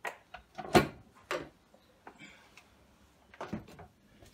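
A few sharp clicks and knocks from a screw being taken out and metal parts of a portable bandsaw and its base being handled on a workbench. The loudest comes about a second in, and two more come near the end.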